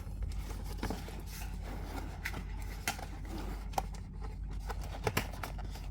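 Scattered clicks and short scrapes of hands working at a cardboard toy box and its packing tape, a sharp tick about every second.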